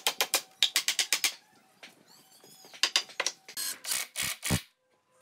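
Quick runs of sharp taps on a pine frame, then a Hitachi cordless impact driver buzzing and hammering briefly as it drives a screw into the glued corner joint, stopping abruptly.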